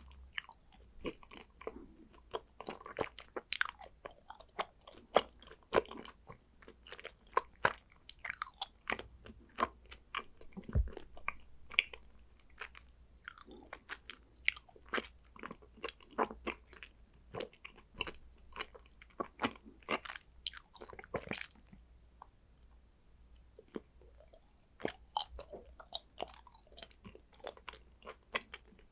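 Close-up chewing and biting of condensed-milk chocolate: a run of sharp snaps and crunchy clicks at an irregular pace.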